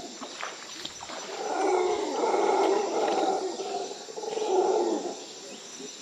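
Battery-powered electric fish shocker humming with a wavering buzz as its rod is worked in the water, swelling louder twice.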